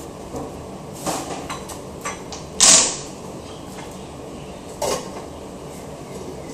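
Papery skin being peeled and rubbed off small cloves by hand: a few short dry crackles and rustles, the loudest about two and a half seconds in, over a steady low background hum.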